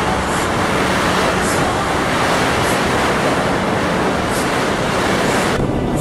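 Wind rushing over the microphone and road noise from a vehicle driving at speed, heard from an open-sided passenger truck. The rush drops away suddenly near the end.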